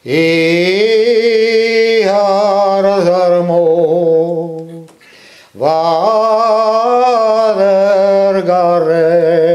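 A man singing a Breton song alone, with no accompaniment, in long drawn-out held notes: two slow phrases with a breath between them about five seconds in.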